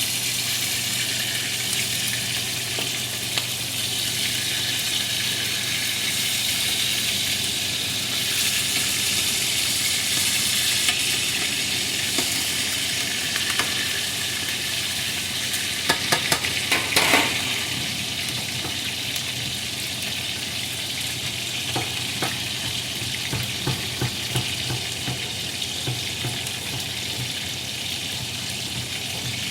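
Food sizzling steadily in hot oil in a frying pan, with a quick cluster of sharp clicks and knocks about sixteen seconds in and scattered small ticks later.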